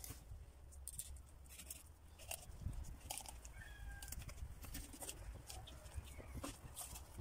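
Faint scattered clicks and scrapes of a kitchen knife against a wooden cutting board as a raw fish is filleted, over a low steady rumble, with a couple of brief faint animal calls in the background.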